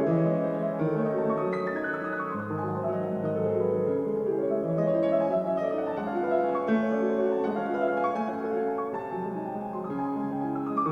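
Piano music played back through Yamaha NS-1000MM speakers: sustained chords, with a falling run of notes about two seconds in.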